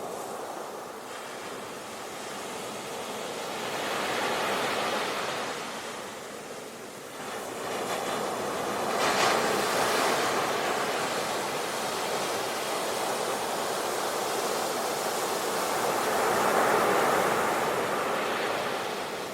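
Ocean waves breaking on a beach: a steady wash of surf that swells and ebbs, with waves cresting about four seconds in, about nine seconds in, and again near the end.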